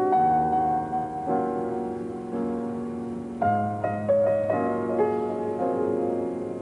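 Slow piano music: a melody over chords, with a new note or chord struck about every second and left to ring.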